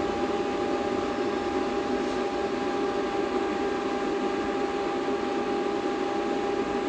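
A battery discharger's cooling fan running steadily under load, a constant whirring with a thin steady whine, while it drains a 16-series lithium battery pack.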